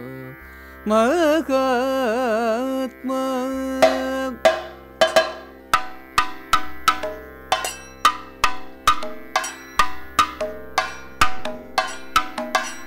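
Carnatic-style Indian classical music: a sung phrase with a wavering held note, then from about four seconds in a run of struck percussion notes, two or three a second, each ringing and fading over a steady drone.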